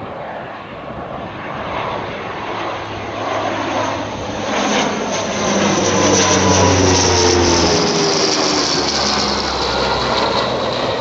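A Hawker Siddeley Andover C1's twin Rolls-Royce Dart turboprops pass low overhead: a high turbine whine over a low propeller drone. It is loudest about six seconds in, then drops in pitch as the aircraft goes over and away.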